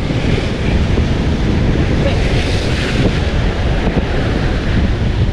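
Wind buffeting the microphone over the steady wash of sea surf, the wash swelling for a moment about halfway through.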